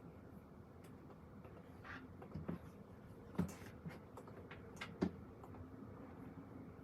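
A few soft clicks and knocks, typical of small objects being handled at a desk, over a steady low room hum; the sharpest come a little past three seconds in and about five seconds in.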